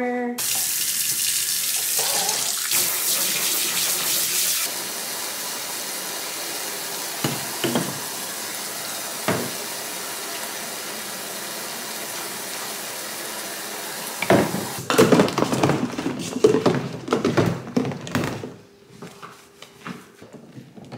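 Kitchen faucet running into a sink of soapy water while glasses are rinsed under the stream, with a couple of light knocks. After about fourteen seconds the tap goes off, and glasses and dishes clink and splash in the soapy water.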